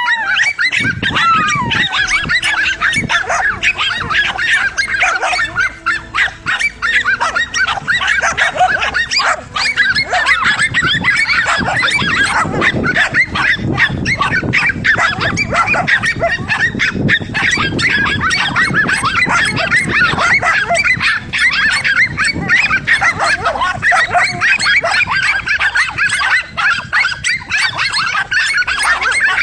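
A pack of dogs barking and yapping nonstop, many barks overlapping, some high and yelping, as they hold a cornered lizard at bay.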